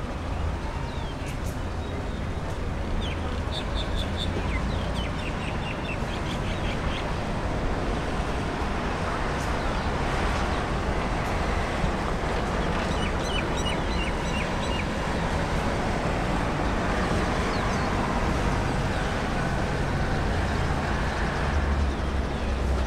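Distant jet engines of a Boeing 787-10 airliner running on the runway, a steady whoosh with a low rumble that grows slightly louder. Small birds chirp in quick repeated notes over it, twice.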